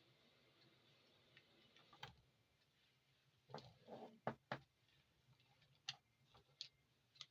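Faint scattered clicks and taps over near silence, with a quick cluster of several about halfway through, like small parts being handled.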